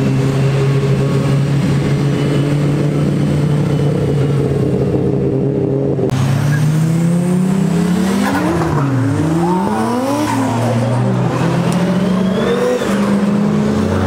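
A car engine held at steady high revs. About six seconds in the sound changes abruptly to several car engines revving up and down, rising and falling over one another, as cars drive past.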